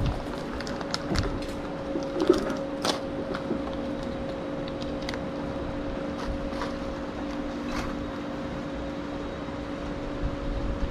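A steady machine hum, even in pitch, with a few light clicks and taps over it; the sharpest is a little over two seconds in.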